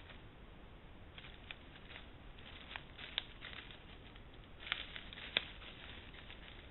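Red fox stepping through dry leaf litter: faint rustling and crackling footsteps, with a few sharper crackles about three seconds in and twice near five seconds in.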